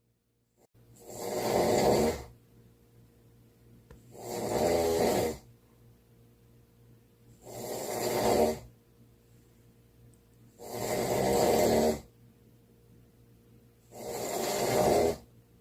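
Snoring: after a moment of silence, five snores in a steady rhythm, about one every three seconds, each lasting a little over a second, with quiet gaps between.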